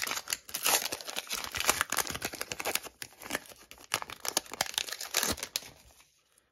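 Wrapper of a 2006-07 O-Pee-Chee hockey card pack being torn open by hand, a dense run of crinkling and tearing that dies away about a second before the end.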